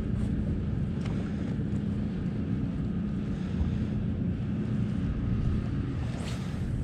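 Boat motor running with a steady low hum, with some wind on the microphone.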